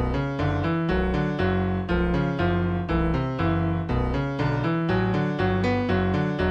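Background music led by piano, a run of notes struck every fraction of a second over a steady low bass.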